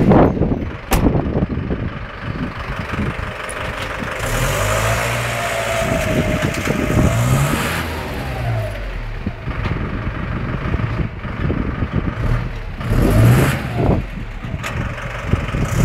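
Van engine revving up and easing off as it tries to reverse with a caravan hitched behind, the revs climbing twice, once about a third of the way in and again near the end.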